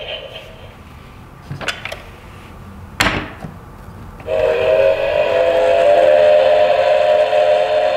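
Toy steam locomotive's electronic train sound playing through its small speaker after its button is pressed: a steady chord of several held tones starting a little after four seconds in. Before it come a couple of sharp clicks as the toy is handled.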